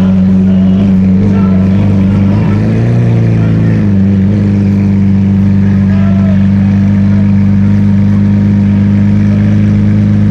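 Car engine running at a steady, low, loud idle, with a slight rise and fall in pitch around three seconds in.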